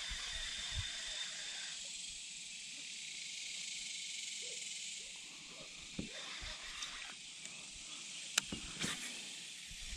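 Steady high-pitched outdoor hiss, with a few sharp ticks near the end.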